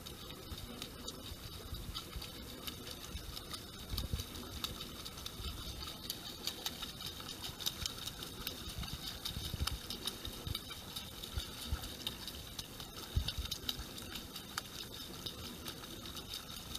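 Water lapping and splashing around the boats, a steady light pattering with many small clicks. Occasional low thumps come through about four, nine and thirteen seconds in.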